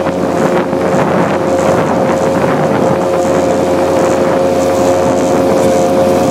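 Motorboat engine running steadily at speed, a constant drone, with wind buffeting the microphone.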